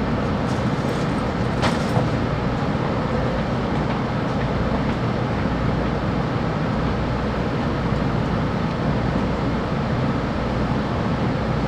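Steady running noise heard inside a 700 series Hikari Rail Star Shinkansen car at speed, with a few faint clicks about two seconds in.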